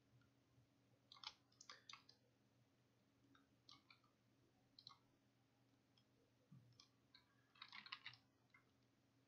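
Faint clicking of a computer mouse and keyboard in several short clusters, the densest run near the end.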